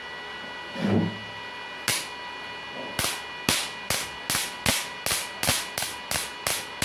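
A string of sharp electric-arc snaps, about two to three a second from about three seconds in, as a wire is struck against the output terminal of a MAX MMA-250 inverter arc welder in a spark test. Each crack shows the welder is delivering output again after its driver card repair and new IGBTs.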